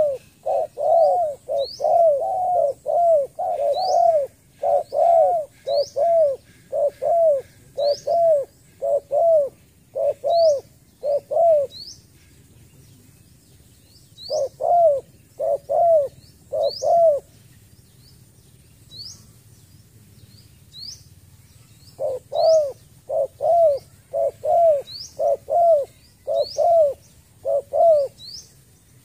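Spotted dove giving rapid runs of short, arched coos, about two a second, in three bursts with pauses between them. Throughout, another small bird gives thin rising chirps about once a second.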